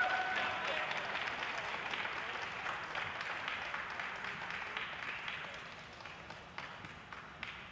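Applause from a small audience, fading gradually, with a few last separate claps near the end. The final note of the program music dies away at the very start.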